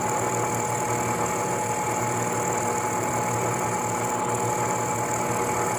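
Bridgeport Series 1 milling machine running steadily, with a constant high whine over its motor hum.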